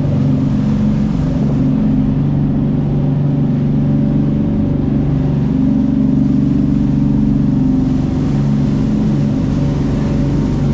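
A 48-foot fishing boat's engine running steadily underway, a constant low drone with a few steady pitched tones over a rumble.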